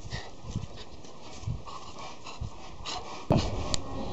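Small dog panting in short quick breaths while playing, with a louder burst of noise about three seconds in.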